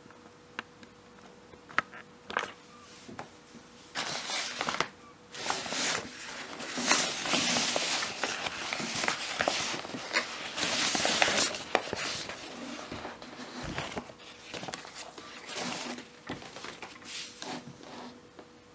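Rustling and crinkling of a fabric carrier bag as hands open it and pull a phone box out, in irregular bursts that are strongest in the middle, with a few light clicks and taps at the start and a faint steady hum underneath.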